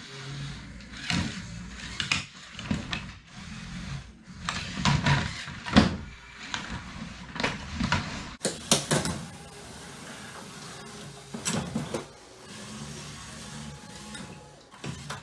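LEGO combat robots' small electric motors humming while their plastic brick bodies knock, clatter and scrape against each other and the wooden arena floor. Bursts of sharp knocks come during the shoving in the first half, then the hum continues more quietly with a few more knocks about two-thirds of the way through.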